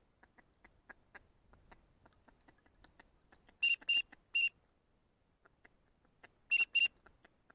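Five short, sharp whistled notes on one high pitch, three in quick succession and then a pair a couple of seconds later, over faint scattered clicks.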